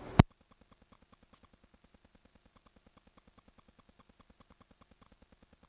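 A sharp click, then a stopwatch ticking sound effect: faint, rapid, evenly spaced ticks counting down the time given to answer.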